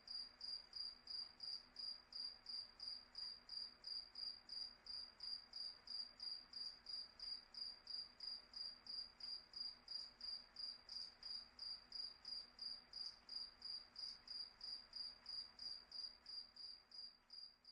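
A cricket chirping steadily: a high, even chirp repeated about three times a second, growing fainter near the end.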